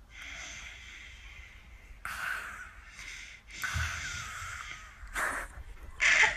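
A baby making a string of breathy, open-mouthed "aaaa" sounds, about five in a row, some over a second long and some short.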